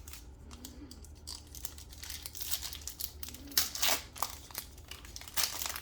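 Plastic wrapper of a trading card pack being torn open and crinkled by hand: a run of crackly rustles that get busier and louder after about two seconds.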